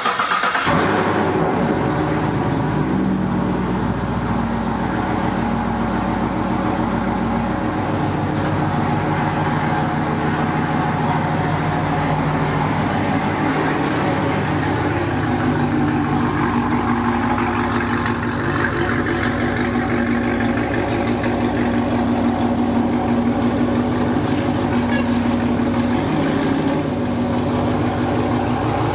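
Chevrolet Camaro V8 starting with a brief flare of revs, then idling steadily while the car pulls away at low speed.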